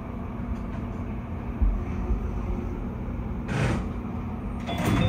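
Cab of a stationary Keio 5000 series electric train: the steady low hum of its onboard equipment, broken by a short hiss about three and a half seconds in and a louder burst of noise near the end.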